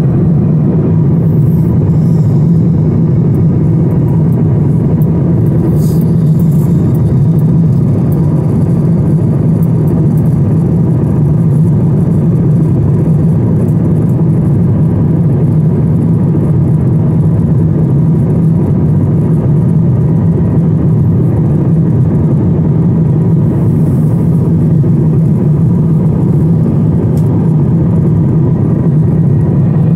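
Steady, loud low rumble and rush of a jet airliner's cabin in cruise flight, from the engines and air flowing past the fuselage.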